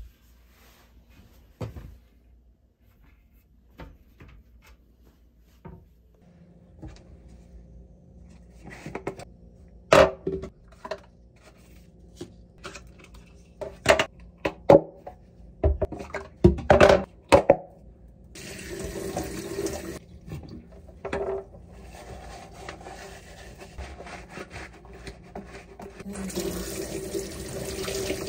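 Cabinet door knocks, then cups and dishes clattering in a stainless-steel kitchen sink. About two-thirds of the way through, tap water starts running into the sink and grows louder near the end as the dishes are washed.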